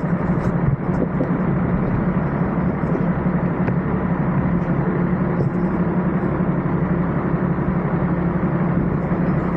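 Nissan Patrol Y60 engine running steadily, a constant low drone with an even rumble over it.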